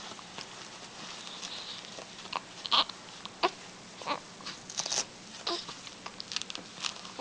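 Baby hiccuping: a string of short, sharp hiccups, each with a tiny squeak of voice, the loudest about three seconds in, with soft rustling between them.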